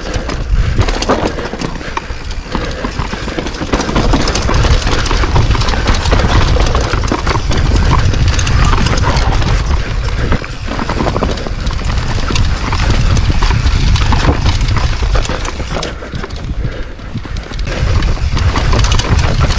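Orange Stage 6 mountain bike ridden fast down a dirt trail: tyres rumbling over the ground and a constant clatter of rapid knocks and rattles from the bike, with heavy wind rumble on the microphone.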